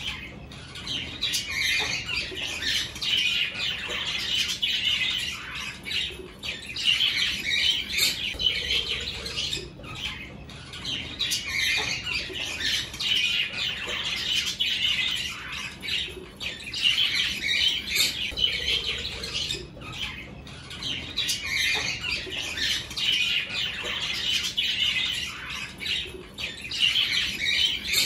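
A flock of budgerigars chattering and squawking together, a dense, unbroken warble of many short calls that swells and eases every few seconds.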